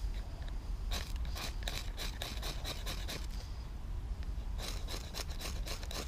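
Two runs of quick, short scraping strokes, several a second, with a pause of about a second between them, over a steady low rumble.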